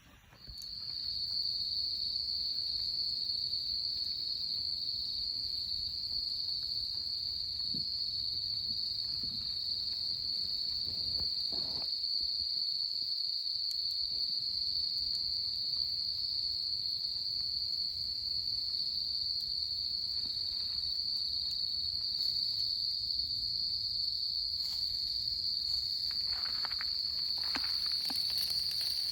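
Autumn crickets trilling in one unbroken high, steady note that starts about half a second in, with a few faint knocks now and then.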